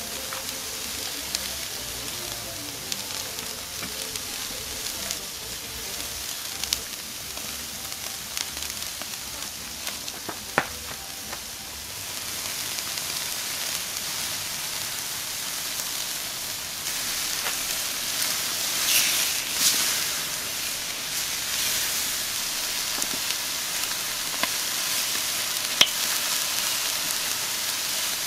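Chuck steak sizzling on a grill over mesquite lump charcoal: a steady hiss with a few sharp pops, growing louder partway through.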